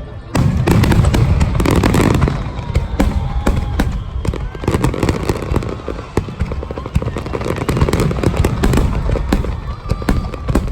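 Fireworks going off in quick succession: low booms under dense, rapid crackling.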